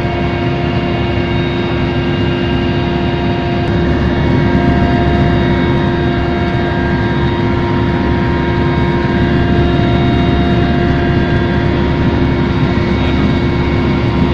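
Helicopter in flight, heard from inside the cabin: a steady engine and rotor drone with several steady whining tones over it, growing slightly louder about four seconds in.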